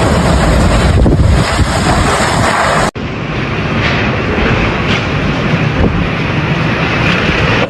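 Loud, steady typhoon wind blasting across the microphone. About three seconds in it cuts off abruptly and another stretch of wind noise starts, duller in the highs.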